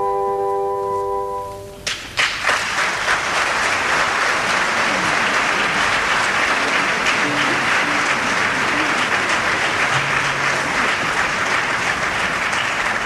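The music ends on a held chord that cuts off about two seconds in, and the opera-house audience breaks into sustained applause.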